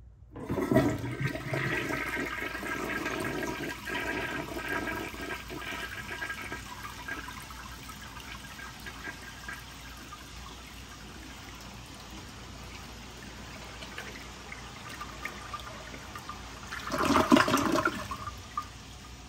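A 1973 Kohler Placid siphon-jet toilet flushing and pulling a pink washcloth down the trapway: a loud rush of water starts just under a second in, eases over several seconds into a steady hiss as the bowl refills, and a short loud burst of gurgling water comes near the end.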